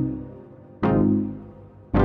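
Background music: a pitched instrumental track with notes struck about once a second, each fading away.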